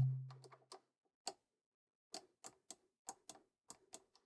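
Fingertips tapping on an iPad touchscreen: a string of light, irregular clicks. It opens with one short low tone that dies away within about half a second.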